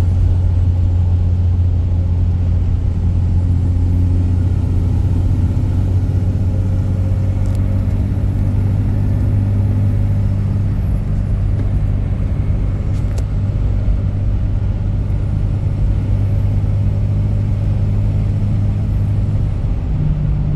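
Diesel truck engine running under way, a steady low drone whose pitch steps up just before the end.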